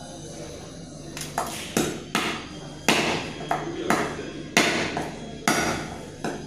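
Knife chopping through goat hip bone and cartilage: about nine sharp strikes at uneven intervals.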